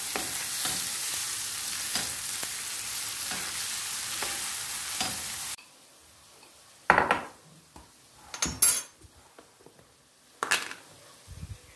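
Food sizzling in a frying pan while being stirred, with faint scraping ticks. About halfway through the sizzle cuts off suddenly, and a few separate sharp knocks follow.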